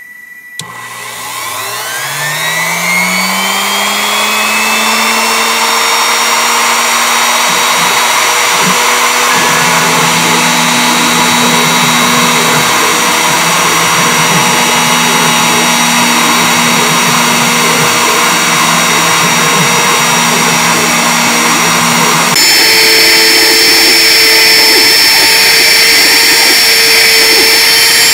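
CNC router's spindle motor starting up, its whine rising in pitch over the first few seconds and then running steadily. About 22 seconds in the sound turns suddenly louder and harsher as a three-flute RotoZip bit cuts into the end grain of a pine block.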